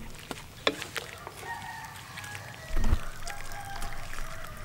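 A rooster crowing: one long call starting about a second and a half in. A few light utensil clinks come early, and a loud thump lands partway through the crow.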